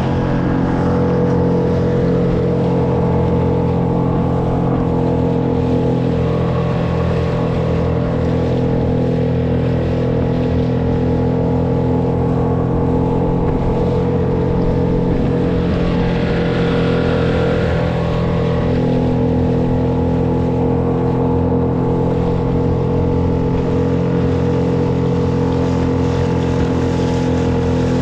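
Small outboard motor pushing a solo skiff at a steady trolling speed, with water rushing along the hull.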